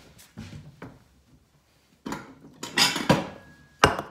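A ceramic bowl being handled on a stone countertop. A cluster of clattering knocks starts about two seconds in, and a sharp clack near the end is the bowl set down on the counter.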